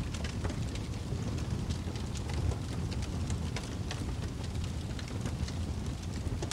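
Steady low rumbling noise with frequent small crackles and ticks scattered through it.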